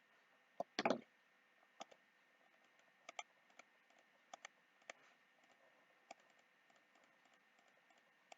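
Scattered computer mouse clicks and keyboard keystrokes, with a quick cluster of louder ones just under a second in, then single clicks every half second or so.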